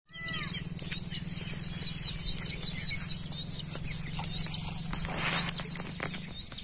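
Many small birds chirping over a steady low hum, with a brief rush of noise about five seconds in.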